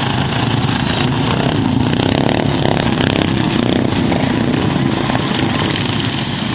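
Racing lawn mower engines running loud and steady.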